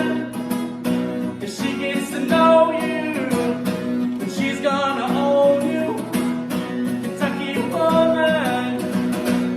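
Acoustic guitar strummed in a steady rhythm, the closing bars of a song after the last sung line.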